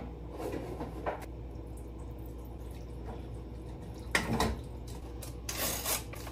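Spoon stirring, scraping and knocking in a metal cooking pot, with the loudest clunk about four seconds in and a short scrape near the end.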